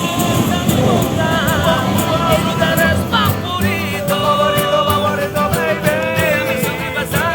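Musicians playing and singing a Latin pop song: a sung melody over instrumental accompaniment with a steady beat.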